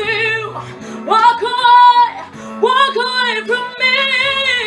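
A woman singing wordless, long-held notes with a wide vibrato, several of them sliding up into the note, over sustained instrumental accompaniment.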